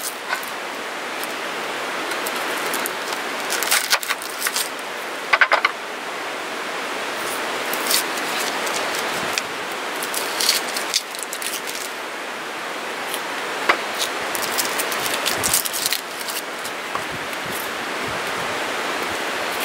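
An onion cut with a knife on a wooden cutting board and its dry, papery skin peeled off by hand: scattered sharp taps and short crackles over a steady rushing background noise.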